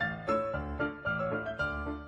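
Background music: a piano or keyboard melody played over a steady bass line, without singing.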